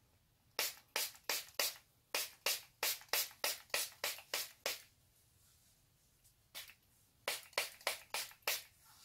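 Pump-action spray bottle of sea salt hairspray spritzing onto hair: a run of about a dozen quick sprays, a pause, then about five more.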